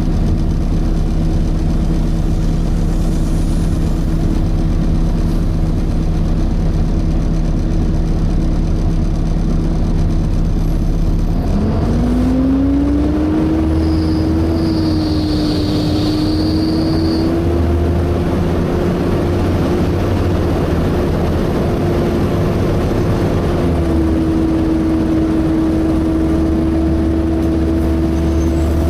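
Volvo B7TL double-decker bus heard on board: engine running with a steady whine from its cooling fan. About 11 seconds in, the whine rises in pitch and then holds. A brief high screech follows a few seconds later.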